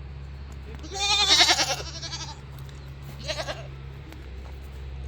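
Goats bleating: one long quavering bleat about a second in, then a shorter one about three seconds in, over a steady low hum.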